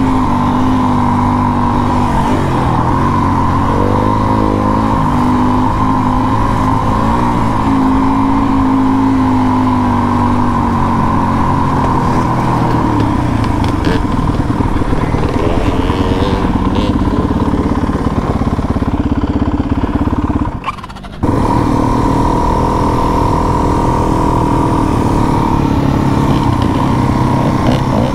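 Trail bike engine running under way while riding, its engine speed rising and falling with the throttle. About three-quarters of the way through, the sound drops away for about half a second, then the engine note carries on.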